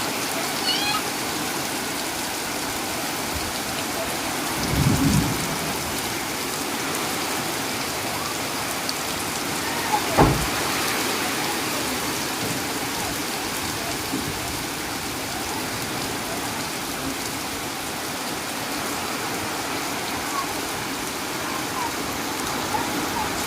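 Steady rain falling on a surface, with a short low boom about five seconds in and a sharp crack about ten seconds in, the loudest moment.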